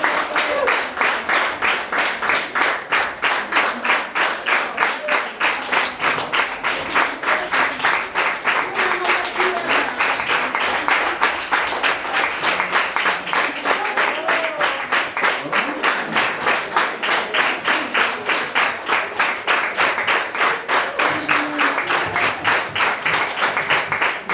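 Audience clapping in unison, a steady rhythm of about three claps a second, with a few voices under it.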